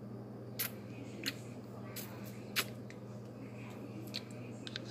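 Ice being cracked and sucked in the mouth: about six short, sharp clicks and cracks at uneven intervals, over a steady low hum.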